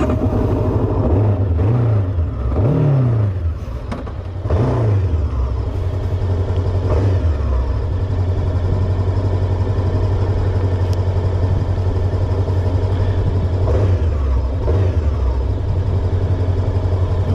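Macbor Montana XR5's parallel-twin engine pulling hard from a standstill. The revs climb and break off about three times in the first five seconds as it shifts up through the gears, then it runs steadily under load.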